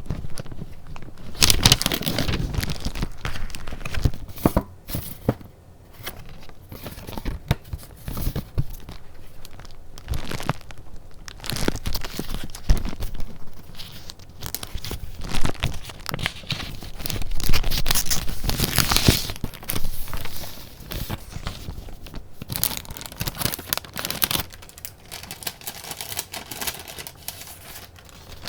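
Paper being handled close to the microphone: irregular rustling and crinkling with small taps, swelling into louder swishes about two seconds in and again past the middle.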